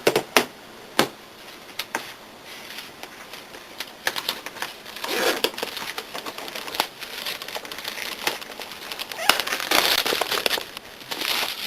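Packaging being opened and handled: a few sharp clicks and knocks in the first two seconds, then stretches of plastic wrapping crinkling and rustling.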